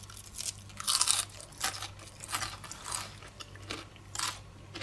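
A person chewing crispy fried potato pancakes, a run of crunches about every half second with a faint low hum underneath.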